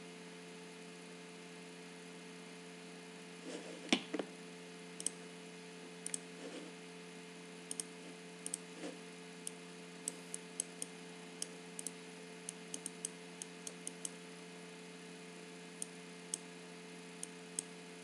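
Computer mouse clicking, a few dozen short, sharp clicks at an irregular pace as settings sliders are clicked and dragged. A louder knock comes about four seconds in, over a steady electrical hum.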